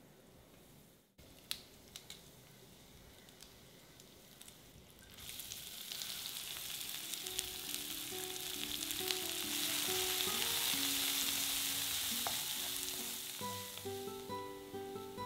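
Chopped onions, green chilli and garlic frying with cumin seeds in hot oil in a cast iron kadai. A faint sizzle with a couple of light taps at first, then a loud sizzle starts about five seconds in and eases near the end, with soft plucked background music coming in under it.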